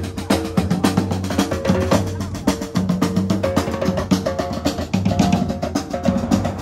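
A small drum group playing a fast, driving rhythm: two snare-style drums and a larger, deeper drum, struck in rapid, evenly repeating strokes.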